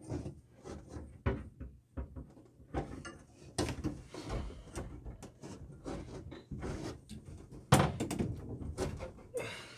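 Knocks, clicks and rustling of PEX pipe and plastic fittings being handled and pushed onto a shower valve, with a sharper knock near the end.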